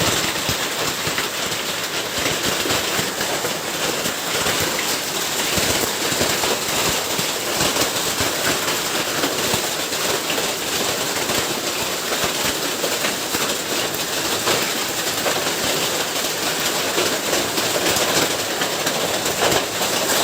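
Hailstorm: hailstones and heavy rain pelting down as a steady, dense rattle of many small impacts.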